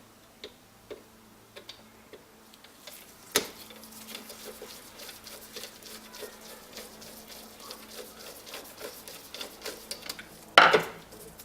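Small metal clicks and a dense run of light ticking as long screws are backed out of a Lucas dynamo and handled, with a sharp click about three seconds in and a louder knock near the end.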